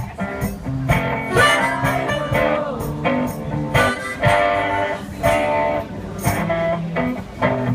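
One-man band playing blues: guitar with a steady beat of percussion strikes, and a note bending in pitch about two seconds in.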